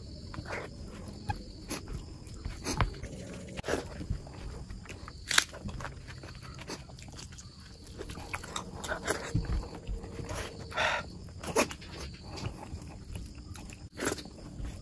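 Close-up eating sounds of a person eating oily mutton curry and rice with the hand: wet chewing and lip smacks, squelching as the fingers mix the rice into the curry, and scattered sharp clicks, with one longer wet noise about eleven seconds in.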